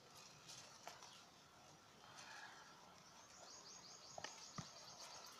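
Near silence: a few faint soft clicks and rustles as hands handle mango leaves and bend wire around the stems, with a faint, quickly repeated high bird chirping in the second half.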